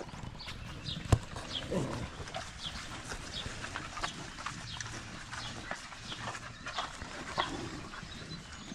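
Farm animals calling, with many short high calls scattered throughout and a few lower calls. A sharp click about a second in.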